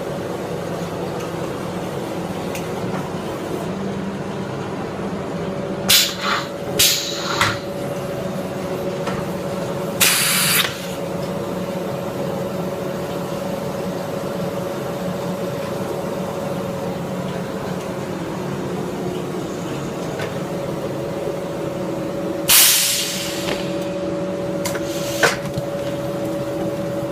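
Bottle blow-moulding machine running with a steady hum, broken by loud hisses of compressed air let out: three short blasts about six to seven and a half seconds in, a longer one at about ten seconds, another at about twenty-two seconds and a sharp short one at about twenty-five.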